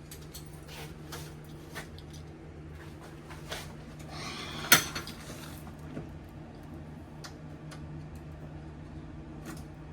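Light clicks and taps of tools and door hardware being handled, with one sharper knock about five seconds in, over a steady low hum.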